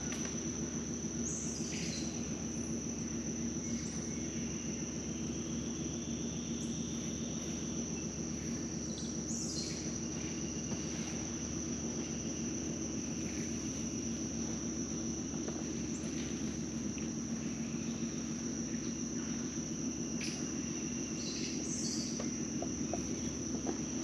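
Rainforest ambience: insects keep up a steady, high-pitched drone, over a low steady hum. Short falling bird calls break in about a second in, again around ten seconds, and twice more around twenty seconds.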